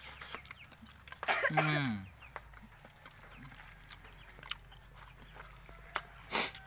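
A man eating, with a head cold. His voice gives a short falling hum about a second and a half in, there is faint chewing, and he gives a sharp cough near the end.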